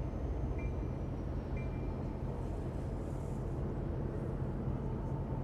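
Steady low rumble of HO scale model trains running on a large layout, with room noise. A short high beep sounds twice, about a second apart, in the first two seconds.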